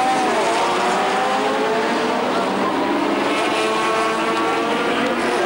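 Several racing car engines running at high revs at once, their pitches rising and falling as the cars go by.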